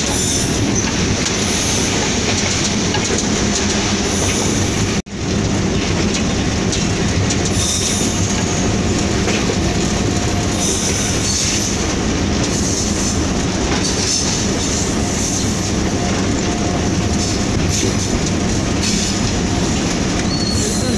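Steady running noise inside the cab of a Hitachi PHA-20 diesel-electric locomotive under way: engine drone with the rumble of wheels on the rails. The sound cuts out briefly about five seconds in.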